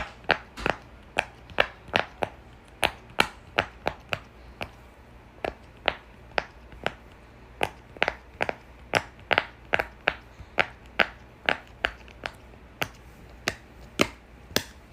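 Bubbles on a silicone pop-it fidget toy being pressed one after another, a steady string of sharp pops about two or three a second.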